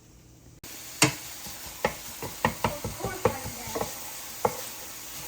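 Food sizzling in a frying pan while being stirred, the utensil knocking and scraping against the pan in irregular strokes. The sizzle comes in suddenly about half a second in.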